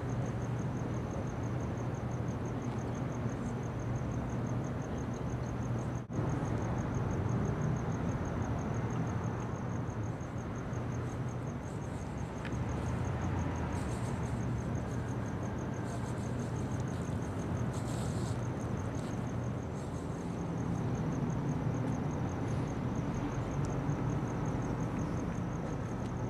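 Steady low hum and background hiss, with a fast, even, high-pitched trill like a cricket's running throughout. The sound drops out briefly about six seconds in.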